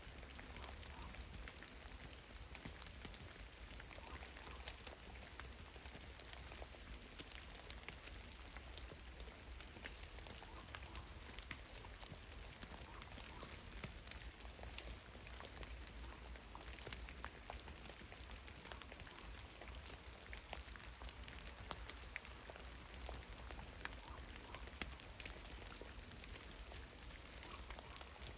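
Meltwater drops falling from melting snow in a forest: many irregular, scattered drips and ticks over a steady, rain-like patter.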